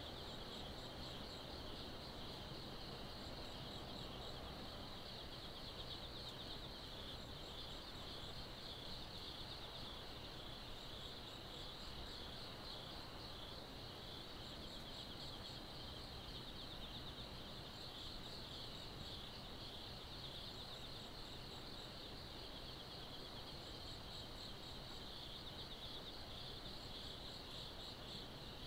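Faint insect chorus: a steady, dense trill with short, higher chirp trains repeating every few seconds, over a low background hum.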